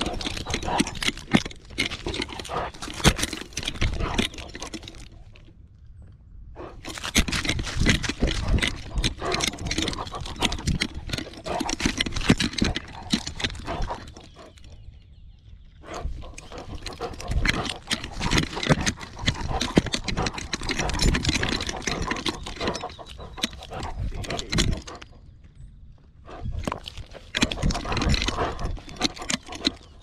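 Dry grass rustling and scraping against a dog's collar-mounted camera as the dog pushes and noses through it, in three long stretches of dense crackling broken by brief pauses.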